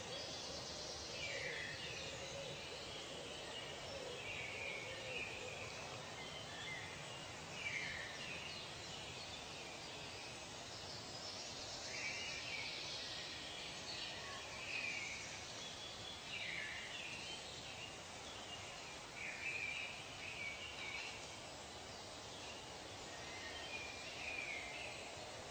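Forest ambience: birds calling every couple of seconds, several calls sweeping sharply downward, over a steady background hiss.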